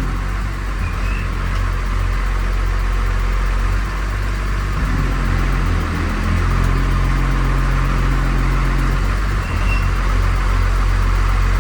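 Cummins diesel engine running with the transmission put in gear, its steady hum shifting in pitch a few times around the middle. The drivetrain is making a noise that does not sound good at all.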